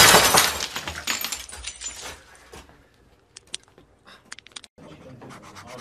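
A loud smash as a fist punches into a computer monitor, followed by rattling clatter that dies away over about two seconds. A few faint sharp clicks come later.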